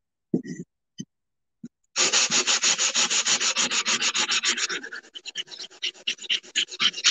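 A handheld sanding block being rubbed over a glazed ceramic tile coaster to sand off its printed lettering. A few light knocks come first, then fast, even back-and-forth strokes at about five a second begin about two seconds in, turning softer and less regular after about five seconds.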